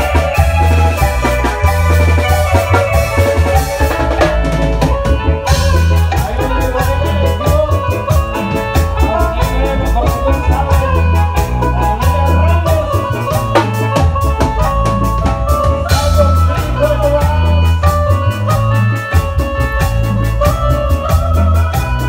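Live band playing a chilena, an electronic keyboard on an organ-like voice carrying the melody over a steady bass line and drum kit.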